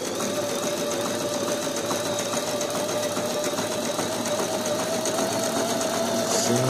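Brother XL-6053 household sewing machine running at a steady speed, its motor humming evenly as the needle stitches through denim.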